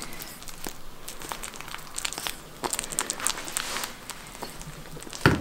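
Rabbit biting and chewing banana: a run of quick, crackly clicks of nibbling, busiest in the middle. One louder thump comes near the end.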